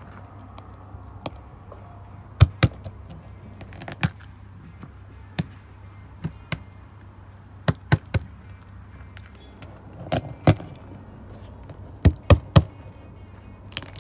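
Sharp knocks and clacks, several in quick pairs, of spiny lobster shells being picked up and knocked against a plastic cutting board while they are cleaned.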